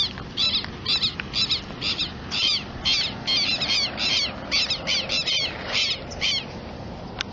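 A bird calling over and over, about two short, sharp, high calls a second, keeping it up for some six seconds before it stops.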